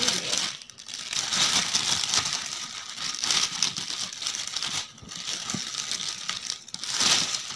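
Clear plastic shrink-wrap on a paperback book crinkling and crackling as it is handled and pulled off by hand, with a few short lulls and the loudest crinkling near the end.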